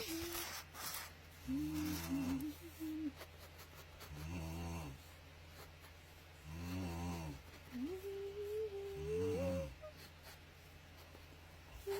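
Snoring: four snores, evenly spaced about two and a half seconds apart. A thin hummed tune wavers over some of them.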